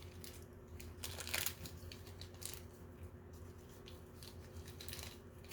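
Faint, scattered crinkling and tearing of small toy packaging as a wrapped mini toy is opened by hand.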